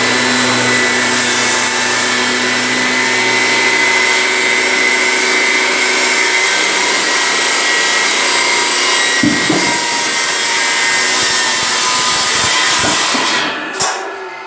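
Large Makita circular saw running and cutting through teak: a loud, steady whine with a high ring. It dies away about a second before the end, with a sharp click.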